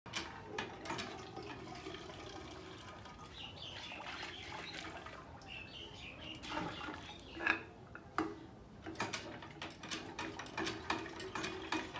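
Water from a hand pump splashing into a metal pot and then a kettle, with repeated short knocks and clanks of metal.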